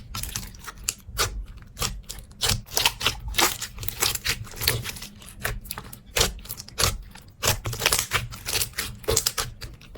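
Slime being squeezed and pressed by hand, giving irregular sharp clicking and crackling pops, a few a second.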